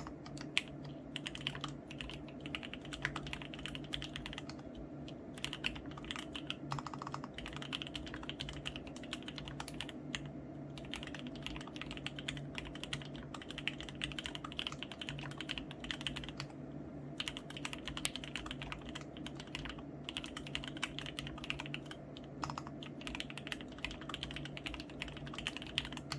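Continuous fast typing on a mechanical keyboard with lubed Gateron Black Ink linear switches in an acrylic plate with sponge dampening, giving a steady stream of keystroke clacks.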